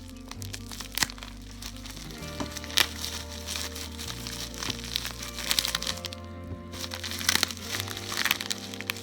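Background music with a steady bass line, over packaging being crinkled and cracked by hand as a small package is unwrapped, with sharp crackles scattered throughout.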